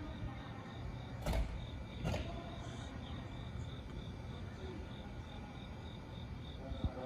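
Platform ambience beside a stopped JR E235-1000 series electric train: a steady low hum under a rapid, even high-pitched chirping that repeats about three times a second. Two short sharp knocks come about a second and two seconds in.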